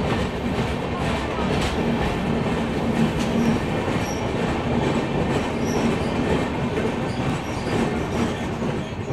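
Passenger train coach wheels running on the rails through a brick-lined tunnel, heard from the open coach door: a steady, dense rumble with clickety-clack and faint wheel squeal, easing a little near the end as the train comes out of the tunnel.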